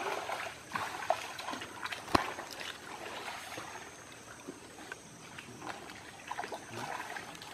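Water splashing and sloshing irregularly as men wade waist-deep through a muddy stream. There is a sharp slap of water about two seconds in.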